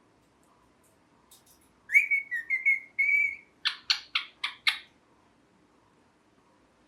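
Ringneck parrot whistling a short warbling phrase, then giving five short, sharp chirps in quick succession.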